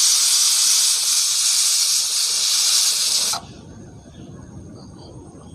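Loud, steady hiss of steam escaping from a pot on the stove, cutting off abruptly about three and a half seconds in.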